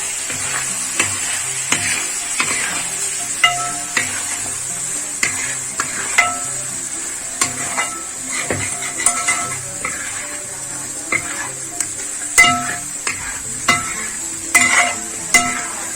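A spice masala frying and sizzling in oil in a karahi while a spatula stirs it, knocking and scraping against the metal pan at irregular intervals.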